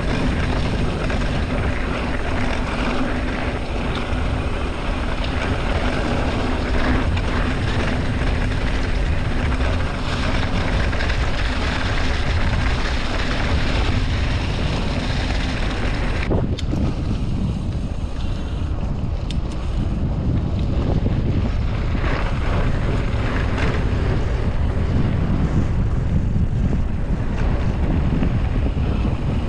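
Wind buffeting the rider's camera microphone on a moving mountain bike, over a constant low rumble. A steady hum in the first half cuts off suddenly about sixteen seconds in, where the sound changes abruptly.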